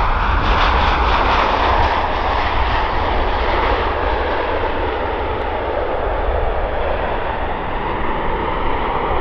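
Jet engine noise of a Royal Air Maroc Boeing 737-800 and its CFM56 turbofans, rolling along the runway: a steady rush that slowly fades as the aircraft moves away.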